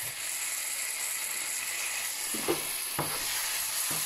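Onion, tomato and spice masala sizzling steadily in a non-stick frying pan as spoonfuls of curd go in. A wooden spatula knocks and scrapes against the pan a few times in the second half.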